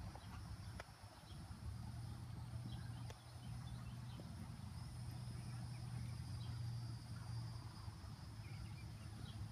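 Steady high insect buzzing over a low steady hum, with a horse's hooves thudding softly and irregularly on a sand arena.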